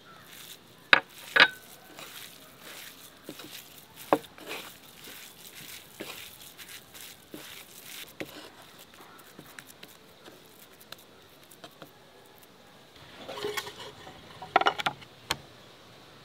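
Hand mixing minced chicken with spices in a wooden bowl: soft, wet patting and squishing with many small ticks. There are two sharp knocks about a second in, and a short clatter of louder knocks near the end.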